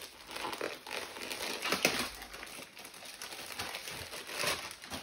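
A pineapple-print bag crinkling as it is torn open and a folded T-shirt is pulled out of it, with a run of crackles and one sharper crackle about two seconds in.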